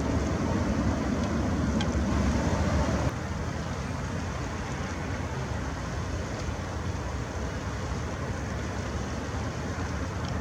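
Steady rumble of distant road traffic, which drops noticeably in level about three seconds in.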